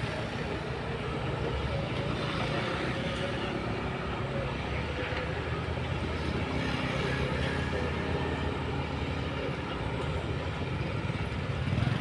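Diesel engines of a Kobelco hydraulic excavator and a crawler bulldozer working earth at a distance, a steady low engine drone.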